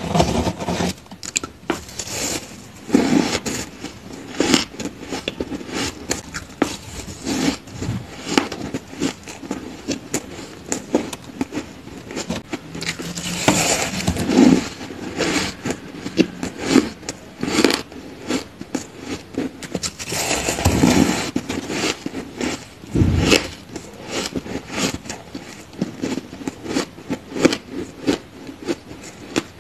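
Crunchy crushed ice being broken off by hand and bitten and chewed: a dense, uneven run of crisp crackling crunches, with several louder bites along the way.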